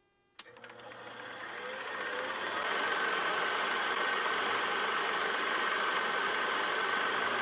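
Film projector switched on with a click, its motor and film clatter building up over a couple of seconds to a steady, fast mechanical clatter with a thin steady whine.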